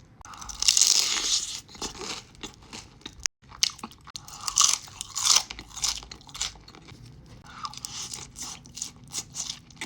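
A loud crunchy bite into a deep-fried cream cheese rangoon, followed by repeated crunching and chewing close to the microphone, with a brief dropout just after three seconds.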